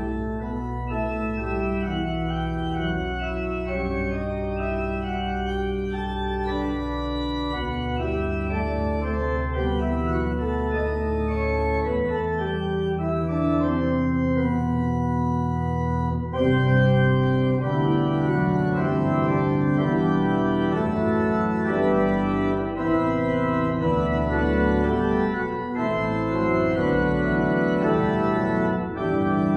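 Organ playing a postlude of held chords after the closing blessing, growing louder about halfway through.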